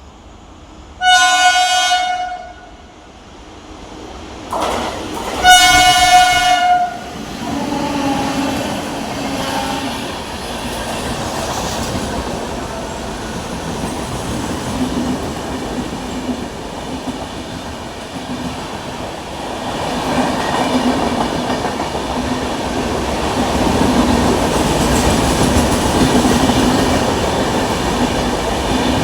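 WAP-7 electric locomotive of Indian Railways sounding its horn in two blasts, the second one longer, then running with the steady rumble and clatter of the train, which grows louder over the last third.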